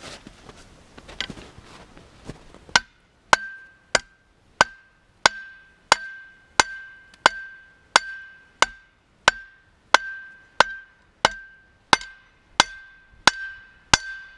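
Hand hammer forging a heated steel rod on a makeshift steel anvil. Steady blows begin about three seconds in, about one and a half a second, each leaving a short metallic ring.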